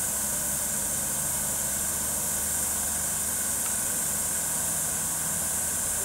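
Siemens Desiro Classic electric multiple unit standing at the platform, its onboard equipment giving a steady low hum with a steady high hiss over it.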